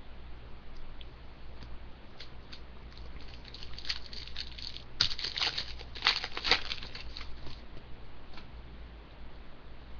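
Trading cards being handled and flipped through one by one, a run of small clicks and papery ticks that grows busiest and loudest about halfway through, over a steady low hum.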